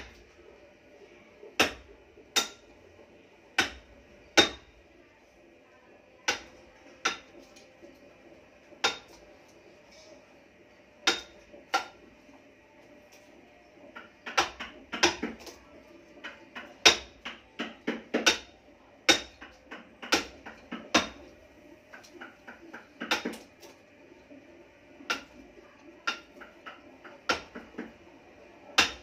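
Mallet striking a chisel as a woodcarver cuts into a block of wood: sharp single taps, a second or more apart at first, then quicker runs of several taps from about halfway through.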